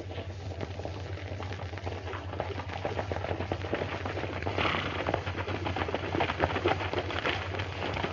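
Hoofbeats of several horses galloping on a dirt trail, a rapid clatter of strikes growing louder as the riders come up and pull in, over the steady low hum of an old film soundtrack.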